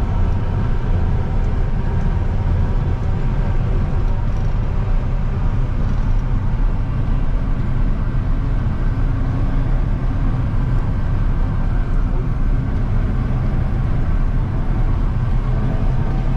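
Challenger 560C combine with its Sisu diesel engine running steadily under load while harvesting corn, heard from inside the cab: a constant low drone of engine and threshing machinery with faint steady whining tones over it.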